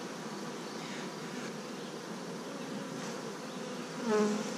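Russian honey bees buzzing over an open hive in a steady hum; about four seconds in, a louder, pitched buzz swells briefly and fades.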